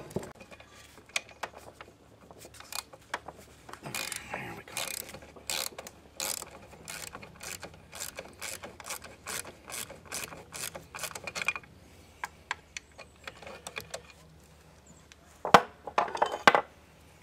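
Hand ratchet wrench clicking in quick runs while turning a fastener on an old Johnson 15 hp outboard's lower-unit housing, with a few louder metal knocks near the end.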